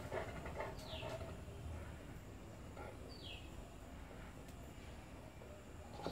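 Faint outdoor background with two short bird calls, each a quick downward-sliding whistle, one about a second in and the other about three seconds in.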